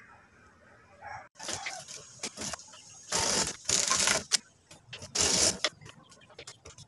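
Manual flatbed knitting machine's carriage pushed back and forth across the needle bed: a run of noisy strokes about half a second long, with sharp clicks between them, starting a little over a second in.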